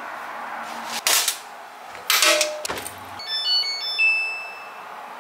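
Samsung front-load washing machine: two thuds as its door is pushed shut, then its control panel beeping, a short run of electronic tones at several pitches as buttons are pressed to set the wash.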